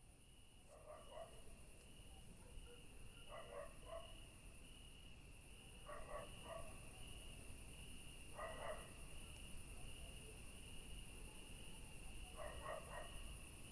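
Crickets chirping in a steady, fast-pulsing high trill, with a second, higher insect drone over it. A distant dog barks faintly in short bouts of a few barks, about every two to three seconds.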